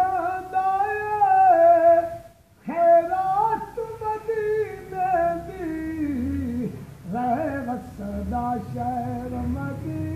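A man singing a naat solo and without instruments, in long held, ornamented notes, with a short breath pause about two seconds in; the melody sinks lower through the second half.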